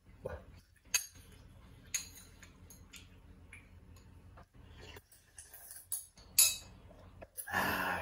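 A few sharp clinks and knocks of a spoon against a bowl during eating, the loudest about six seconds in, followed by a short, denser noisy stretch near the end.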